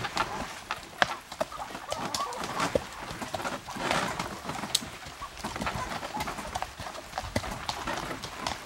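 Hoofbeats of a harnessed horse pulling a cart along a dirt trail, with frequent irregular clicks and rattles from the cart and harness.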